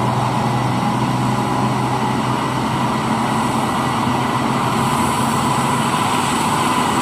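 Heavy vehicle engine running steadily, an engine sound for a wheel loader, holding one even drone with a steady hum.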